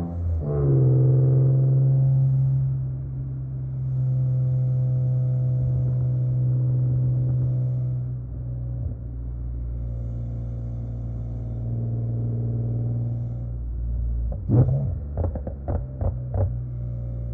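BMW E46 M3's S54 straight-six through a Supersprint exhaust: a rising rev that drops at an upshift right at the start, then a steady pull at even revs. Near the end comes a quick run of about five sharp pops.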